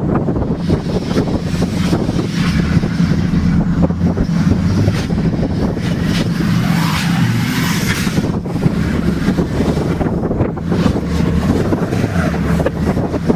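A Scion tC's engine idling close by with a steady low hum, mixed with wind buffeting the microphone. Behind it, a Volvo 940 Turbo's engine revs more faintly as the car spins donuts in the snow, rising in the middle of the stretch.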